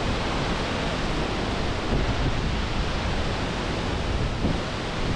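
Steady rushing noise of wind and open sea, with wind buffeting the microphone.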